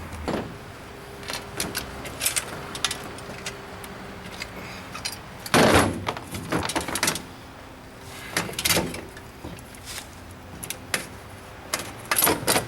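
Metal clicks, knocks and clanks of hand tools and bicycle parts as a bicycle is taken apart, with a louder clatter about six seconds in.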